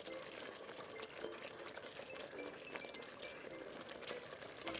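Stew sauce simmering in an aluminium pot, bubbling and crackling faintly while a wooden spatula stirs through it.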